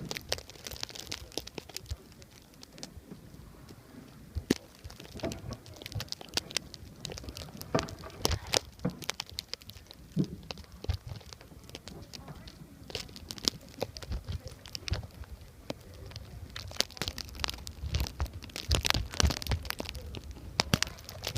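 Gusty wind buffeting the phone microphone in a blizzard, a low rumble that swells and fades and is strongest near the end, with many irregular crackles and clicks.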